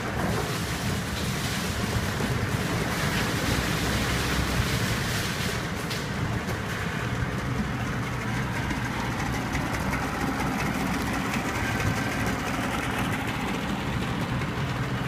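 Nissan 40 hp three-cylinder, oil-injected two-stroke outboard running steadily.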